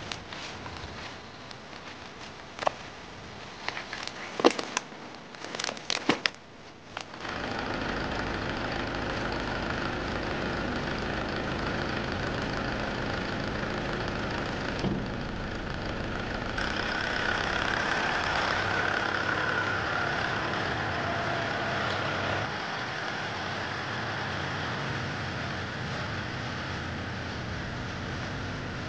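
Scattered sharp knocks and scrapes as dirt and rotten wood are pulled away by hand from a half-buried wooden railway sleeper. From about seven seconds in, a red compact tractor's engine runs steadily while its front-end loader carries the sleeper, a little louder from about sixteen seconds in.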